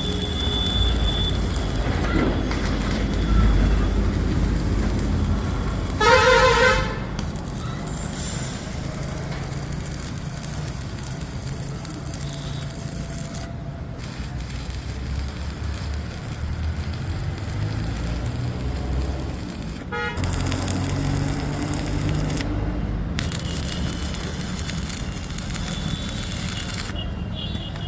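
Steady road-traffic rumble with a vehicle horn sounding once, briefly, about six seconds in.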